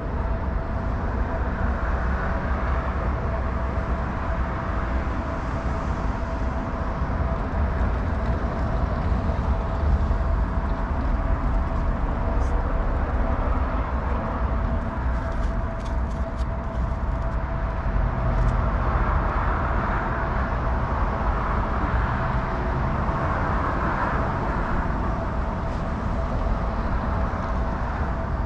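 Car engine idling: a steady low rumble with a constant thin hum over it.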